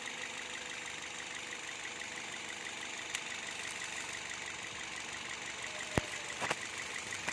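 2014 Toyota Vios engine idling steadily with a fast, even ticking. A few sharp clicks come about six seconds in.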